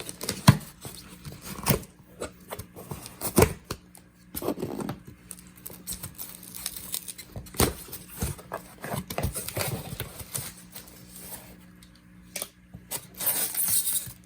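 Cardboard shipping box being opened by hand: irregular clicks, knocks and rustling of cardboard and packing, with longer tearing sounds about five seconds in and again near the end.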